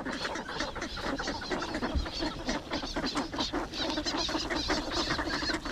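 A crowd of ducks jostling for food held out by hand, giving many short, low, quick calls mixed with a rapid clatter of bills pecking.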